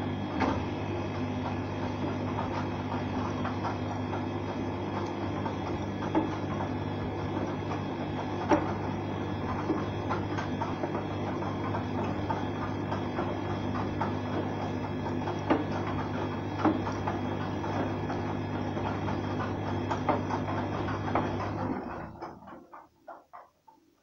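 Arçelik front-loading washing machine turning its drum during the wash: a steady motor hum with scattered clicks and knocks from the tumbling wet laundry. About 22 seconds in the motor stops and the drum coasts to rest with a few last knocks.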